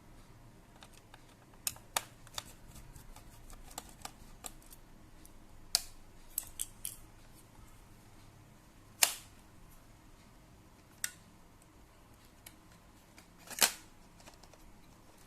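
Scattered sharp clicks and light knocks of a laptop's parts being handled during a RAM and SSD upgrade. A few louder single clicks come about six, nine, eleven and thirteen seconds in.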